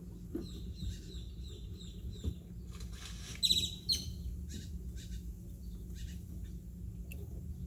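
A small bird chirping: a quick run of short, high, evenly repeated notes, then two louder chirps about halfway through. Under it runs a low steady hum, with a few faint clicks and knocks.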